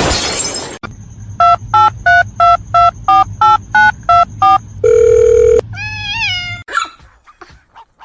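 A loud burst of hiss lasting under a second, then a phone number being dialed: ten touch-tone keypad beeps at about three a second. A short steady tone follows, then a brief pitched sound that rises and falls.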